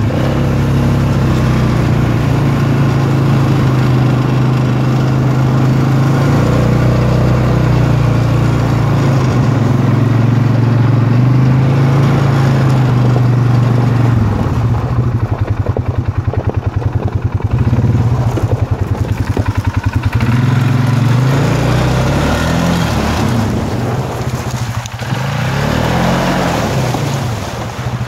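Polaris 570's single-cylinder engine running steadily as the machine travels along the trail. In the second half the engine note wavers, dipping and rising with the throttle.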